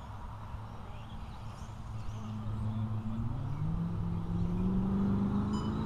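A car engine speeding up, its pitch rising and the sound growing louder over the second half, above a steady low hum.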